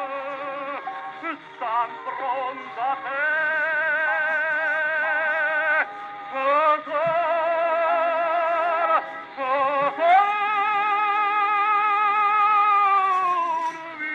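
Music with operatic-style singing: a voice holds long notes with a wide, wavering vibrato and pauses briefly between phrases, with the longest held note near the end.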